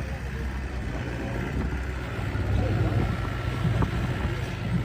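An engine running steadily with a low rumble, under faint outdoor background noise.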